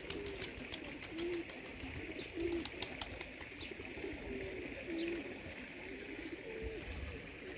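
Fancy pigeons cooing: a string of short, low coos repeating one after another.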